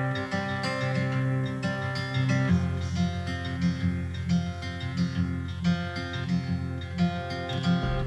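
Background music: acoustic guitar playing chords, with a change of chord about two and a half seconds in.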